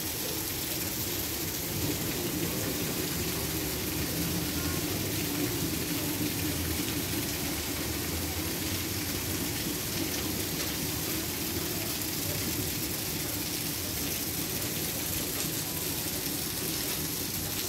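Steady rain pouring onto paved ground and parked cars, an even hiss that does not let up.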